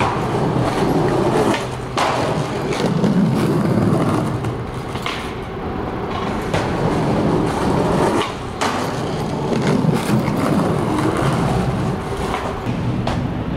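Skateboard wheels rolling over stone paving, a rough rumble that swells and fades, broken by a few sharp clacks of the board.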